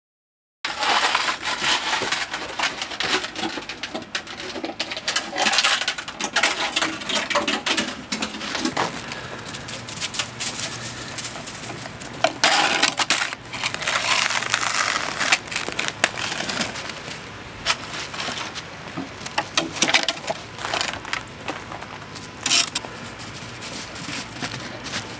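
Crunching and scraping in snow with many sharp clicks and crackles: a hound's paws in the snow and the orange plastic snow shovel it carries, knocking and dragging. Louder bursts come around a quarter of the way in, about halfway, and near the end.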